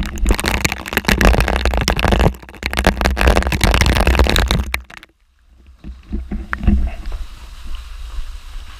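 Storm wind and rain buffeting the microphone in loud gusts with a heavy low rumble, cutting off suddenly about five seconds in. After that, quieter noise with a few soft knocks.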